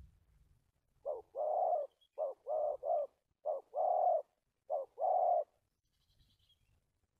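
Spotted dove cooing: about nine coos between one and five and a half seconds in, mostly a short note followed by a longer one, with a run of three short notes in the middle. This broken phrasing is what keepers call a stuttering ('cà lăm') call.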